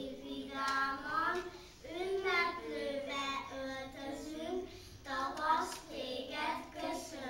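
Young children singing a song unaccompanied, in phrases with held notes.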